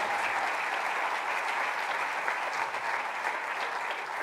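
Audience clapping steadily, a dense patter of many hands.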